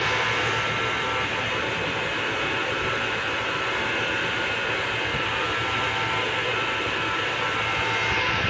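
Steady mechanical running noise with a high whine of several fixed tones, cutting in suddenly at the start.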